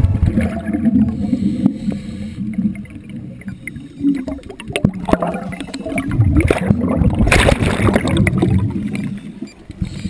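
Scuba divers' exhaled air bubbles rushing and gurgling underwater, with a low rumble throughout and louder crackling surges around the middle.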